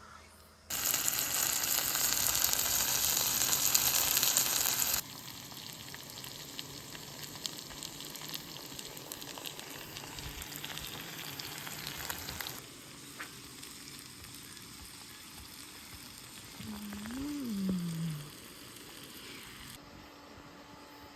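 Food sizzling and crackling as it fries in hot oil. The sound is loud for the first few seconds, then drops in two steps to a quieter sizzle, with a brief rising-and-falling tone near the end.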